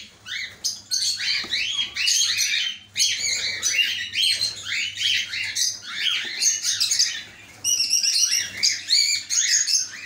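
A colony of caged cockatiels chirping and calling, many short overlapping chirps with hardly a break, easing off briefly a little past seven seconds in.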